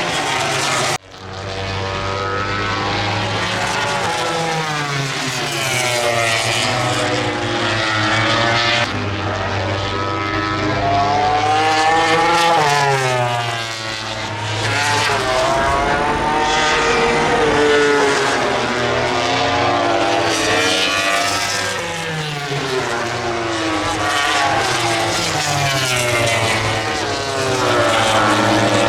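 MotoGP racing motorcycles' four-cylinder engines at high revs, several bikes overlapping, their pitch repeatedly climbing and dropping as they accelerate, shift and brake through the corners. The sound cuts out abruptly for a moment about a second in.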